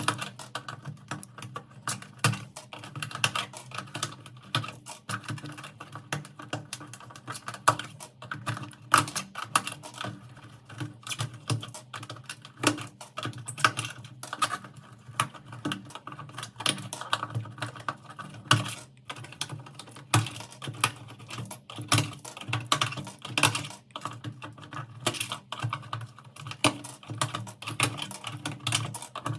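Computer keyboard keys clicking and clattering in quick, irregular succession, many clicks a second.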